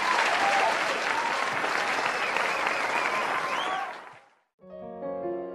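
Crowd applauding and cheering, with rising and falling whoops over the clapping. It fades out about four seconds in, and soft electric-piano music starts just before the end.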